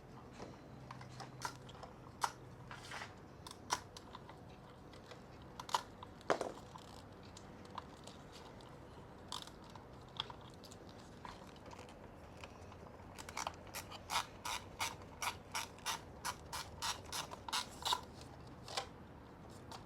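Scattered clicks and knocks of hand tools working on the motorcycle's parts, then, about two-thirds of the way in, a run of quick ratchet-wrench clicks at about four a second for several seconds.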